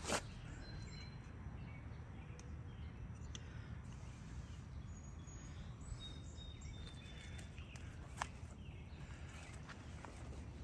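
Outdoor ambience: a steady low rumble with a few soft clicks, one just at the start and another about eight seconds in, and a couple of faint high chirps.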